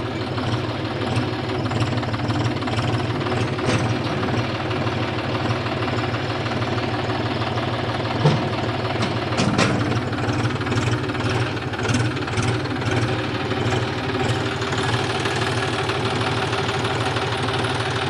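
John Deere farm tractor's diesel engine running steadily while the tractor's plough hydraulics lift a rear-mounted manual backhoe-loader bucket, with a few short knocks along the way.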